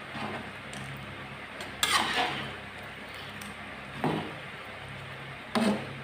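Metal spatula stirring thick coconut-milk curry in a metal pan, clanking against the pan three times: loudest about two seconds in with a short ring, then near four and five and a half seconds, over a steady low hum.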